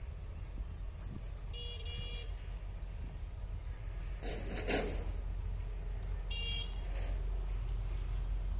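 Low rumble of an approaching diesel-hauled container train, growing slowly louder. Two short high-pitched horn beeps sound, one early and one after about six seconds, with a brief rush of noise near the middle.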